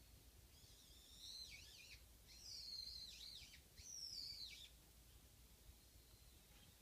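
Japanese white-eye singing: a fast, high-pitched twittering warble in three phrases that run close together over about four seconds.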